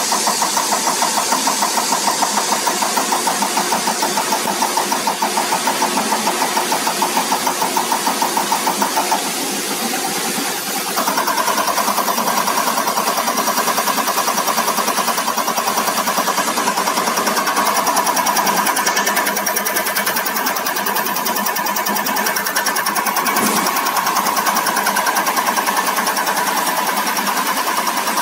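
CR819 injector test bench running an automatic test on a Cummins EUI unit injector, its cam drive turning at 400 rpm with a fast, even ticking as the injector fires. About nine seconds in it dips briefly, then runs on steadily at 600 rpm for the next test step.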